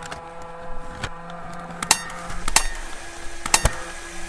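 Sharp metallic clanks over a steady low hum. There is one strike just before two seconds in, one about halfway, and a close double strike at about three and a half seconds, each with a short ringing tail.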